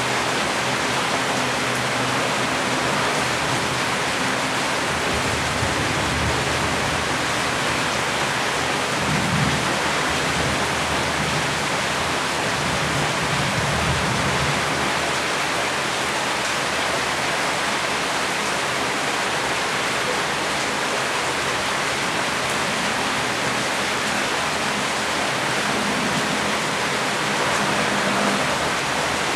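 Steady heavy rain falling, a dense even hiss that doesn't let up.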